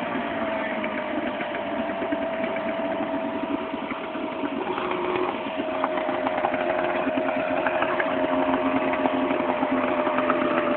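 Small outboard motor with its cover off, running at a steady speed.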